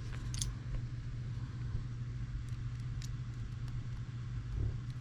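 A few light clicks of small metal parts being handled while a screw is fitted into an airsoft Hi-Capa pistol, the sharpest about half a second in and another around three seconds, over a steady low background hum.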